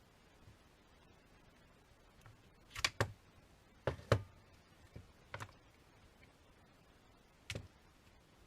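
A handful of short, sharp clicks and light knocks, several in quick pairs, spread over a few seconds with quiet between them.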